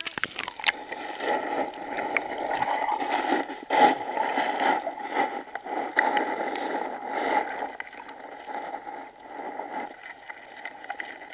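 Creek water heard with the microphone underwater: a muffled, dense bubbling and rushing with many scattered sharp clicks and knocks. It dies down about ten seconds in.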